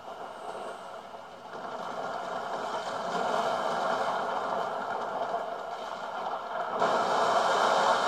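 Video game boss-fight sound effects from an MSI GS73VR laptop: a dense rushing rumble that builds and grows louder, jumping up about seven seconds in.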